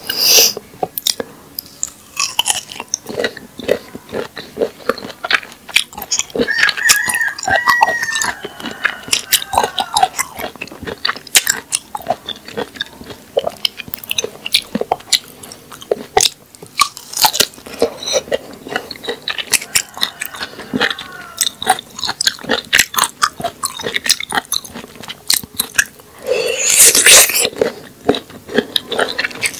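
Biting into and chewing raw rabbit-ear (prickly pear) cactus pad: repeated crisp, crackly crunches and wet chewing, with one longer, louder crunch near the end.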